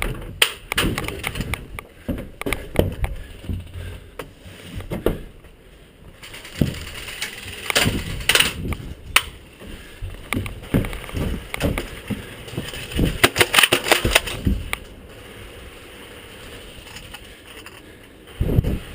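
Irregular knocks, rustles and clicks, with denser clusters of sharp clicks twice, and a quieter spell near the end.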